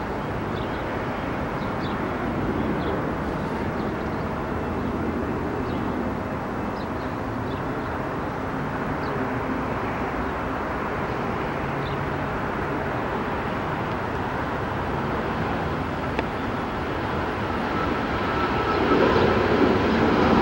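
Delta Airbus A319 jetliner on final approach: a steady jet-engine rumble that grows louder near the end as the plane draws closer.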